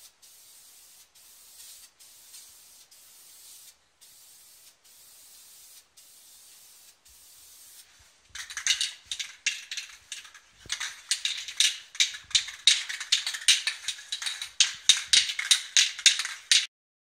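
Aerosol spray can of gloss black engine enamel hissing faintly and steadily, broken by short pauses. About eight seconds in, a much louder run of rapid pulses begins, several a second, and cuts off abruptly near the end.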